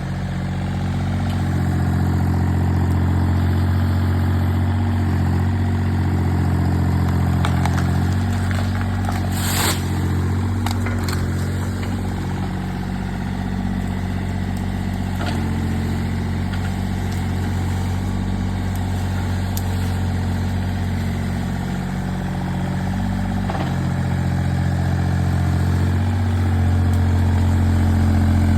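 Diesel engine of a Tata Hitachi Zaxis-33U mini excavator running steadily while it works, its note shifting up and down in steps as the hydraulics take load. A few sharp metallic knocks come about a third of the way in.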